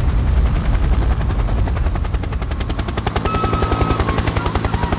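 Helicopter sound effect: a cartoon helicopter's rotor chopping in fast, even beats, about ten a second, growing clearer about three seconds in. A deep rumble underneath fades over the first couple of seconds.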